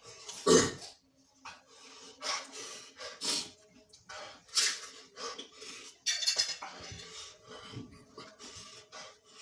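Eating sounds from spicy noodles: irregular bursts of slurping, sharp breaths and coughs, with utensils and dishes clinking now and then. The loudest burst comes about half a second in.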